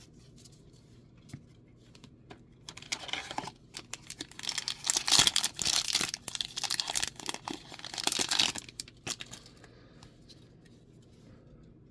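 A Magic: The Gathering booster pack's plastic wrapper being torn open and crinkled in a few crackling bursts, the loudest and longest in the middle.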